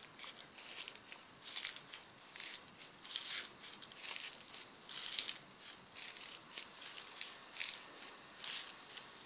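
Footstep sound effect for a small walking figure: a run of soft, crisp, crunchy steps, about two a second.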